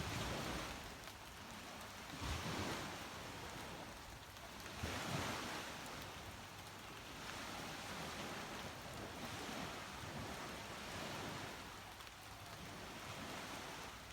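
Sea waves breaking and washing up a beach, the wash swelling every few seconds, over a steady hiss of rain.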